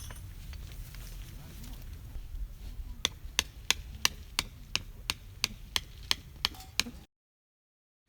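Chopping with a blade: about a dozen sharp, evenly spaced strikes, roughly three a second, starting about three seconds in, then the sound cuts off suddenly.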